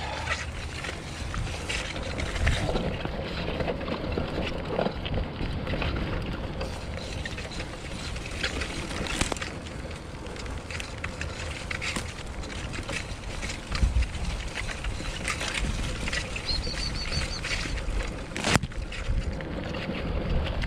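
Mountain bike riding along a bumpy grass farm track: steady rumble of the tyres with frequent small rattles and knocks from the bike, and one sharp knock near the end.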